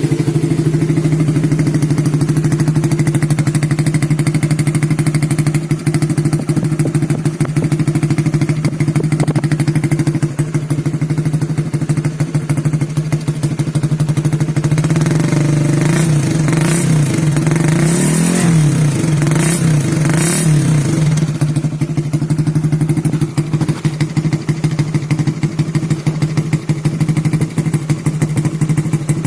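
A Honda CB150R's single-cylinder engine idles steadily through an aftermarket local Satria FU-style exhaust, with a crisp exhaust note. Past the middle the engine speed briefly rises and falls a few times.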